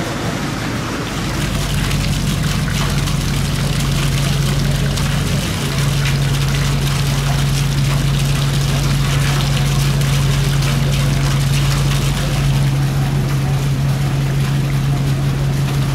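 Car driving on a wet road in rain: a steady engine and road drone that grows louder about a second and a half in, under the hiss of tyres on wet pavement and rain spattering on the car.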